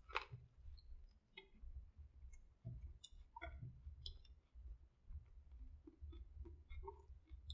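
Biting into a sub sandwich topped with crispy onion strings: a crunch of the bite just after the start, then faint crunching and wet mouth clicks of chewing.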